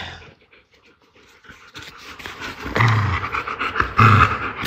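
Labrador retriever panting close up, starting faintly about a second and a half in and growing louder, after a short burst of noise at the very start.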